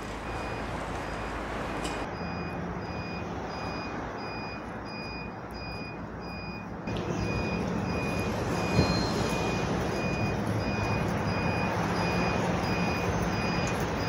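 A vehicle's reversing alarm beeping at an even pace over the low rumble of street traffic, with a single sharp knock about nine seconds in.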